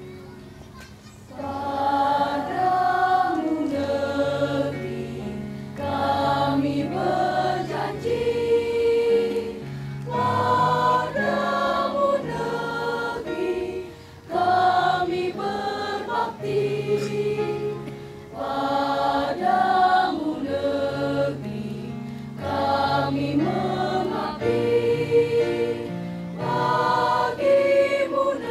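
School choir of young teenagers singing a song, with held keyboard chords underneath; the singing comes in about a second and a half in.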